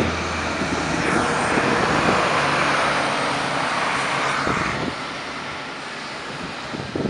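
A city bus passing on the street among traffic, heard as a steady rushing noise that swells and then fades about five seconds in.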